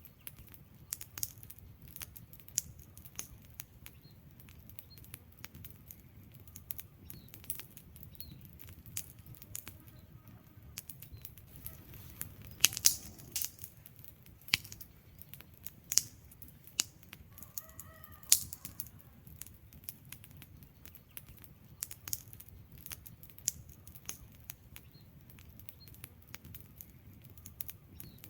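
Wood fire crackling: irregular sharp pops and snaps of burning logs over a low, steady rumble of flames, with a cluster of louder pops around the middle.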